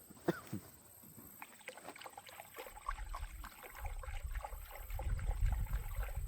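Scattered small knocks, clatter and rustling of things being moved about by hand, with a couple of short squeaks near the start and a low rumble building from about halfway through.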